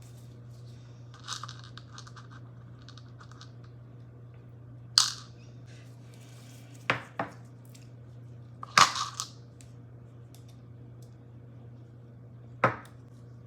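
Hands handling computer parts and their plastic: a stretch of crinkling about a second in, then a handful of sharp plastic clicks and knocks, two of them close together near the middle, over a steady low hum.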